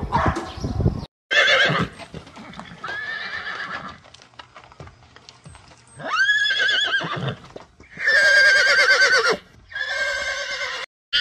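Horses whinnying: about five separate wavering, quavering whinnies, each under two seconds, with hoof clops in the first second.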